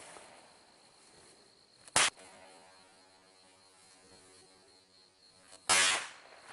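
Firecrackers going off: two sharp bangs, one about two seconds in and a longer one near the end, with a faint steady hum between them.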